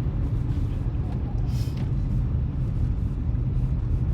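Steady low rumble of a moving road vehicle's engine and tyres, heard from inside the cabin, with a brief hiss about a second and a half in.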